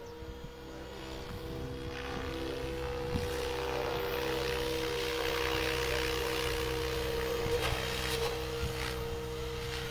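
Helicopter flying low and closing in: a steady high whine over a lower engine drone, with a rushing rotor noise that builds and grows louder over the first few seconds.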